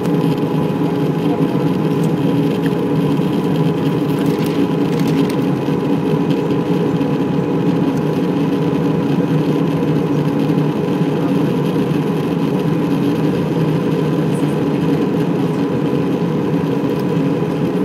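Steady cabin noise of an Airbus A320 in flight, heard from a seat over the wing: an even drone of the jet engines and airflow, with a couple of faint steady tones running through it.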